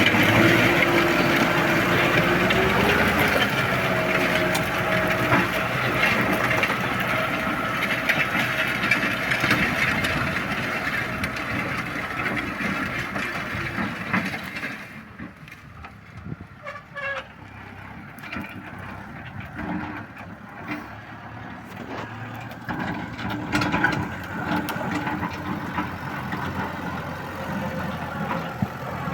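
Kubota M6040S tractor's diesel engine running steadily and loudly, then dropping sharply to a quieter, lower running about halfway through, and picking up a little again near the end.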